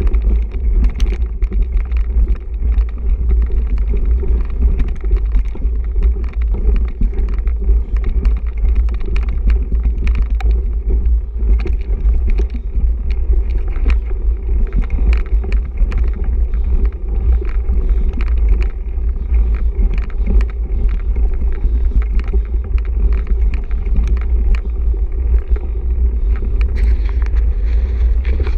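Mountain bike ridden fast over a rooty dirt trail, heard from a camera mounted on the bike or rider: a steady heavy rumble with frequent sharp rattles and knocks as the bike goes over roots and bumps.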